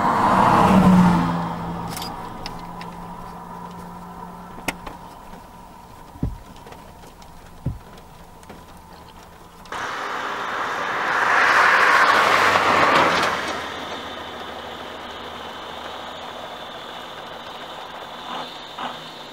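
Cars passing by on the road, each swelling and fading over a few seconds: one at the start, with a dropping engine and tyre tone, and another about ten seconds later. A few faint knocks come in between.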